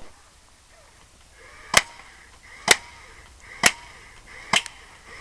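Remote-control airsoft tank firing BBs four times, about a second apart, each sharp snap preceded by a brief whir of its firing motor.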